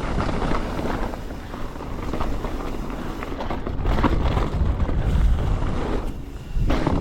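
Mountain bike descending a dirt downhill trail, heard through a bike-mounted or helmet-mounted GoPro: a steady rumble of tyres and wind on the microphone under the bike's rattle, with a sharp clatter about four seconds in and another near the end.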